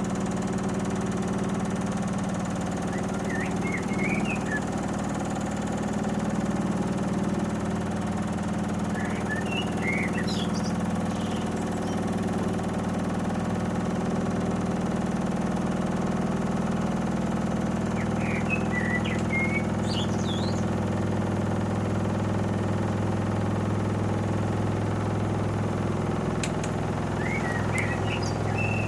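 Panasonic NA-147VB2 inverter washing machine running its drum in the final spin stage with a steady motor hum that drops lower about halfway through; this final spin dragged on because the machine had trouble distributing the load. Birds chirp briefly four times in the background.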